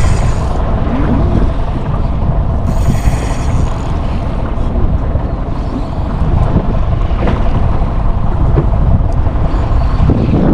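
Wind buffeting the microphone on a small boat at sea, a steady low rumble with water noise. About three seconds in there is a brief high whirr lasting about a second.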